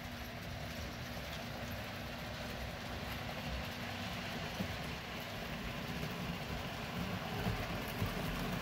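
Model train running on the layout track: a steady rumble of motor and wheels that grows gradually louder as it approaches.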